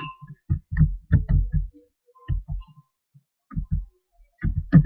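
Computer keyboard keys being typed, heard as short dull thumps in irregular small clusters, a dozen or so in all.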